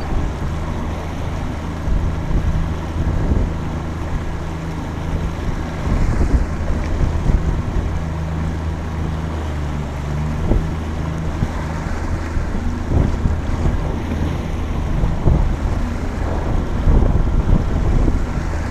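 Small fishing boat running under outboard motor power: a steady low engine drone, with wind buffeting the microphone and water slapping against the hull.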